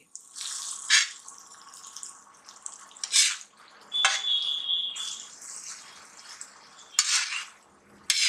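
A steel spoon stirring and scraping thick masala across a cast-iron tava, with a few sharp scrapes several seconds apart and a brief high squeal about four seconds in.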